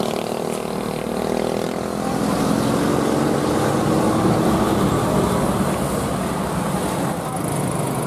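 Large diesel bus and truck engines running as they pass close by on the road. The engine note is clearest through the first few seconds, then gives way to a rougher, even rumble.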